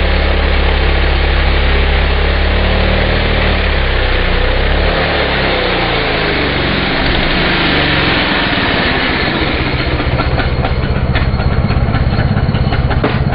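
McCulloch two-stroke chainsaw cutting through a log under load, its engine pitch shifting partway through, then settling to a rough, pulsing idle about ten seconds in as the saw is lifted out of the cut.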